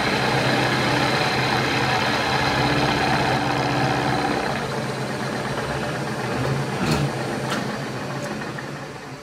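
Milling machine running, its 12 mm end mill cutting a flat across a metal part: a steady motor hum under a dense cutting hiss. There is a sharp click about seven seconds in, and the sound fades near the end.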